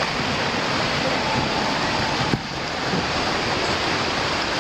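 Steady rush of splashing, churning pool water close to the microphone, with a brief dip a little over two seconds in.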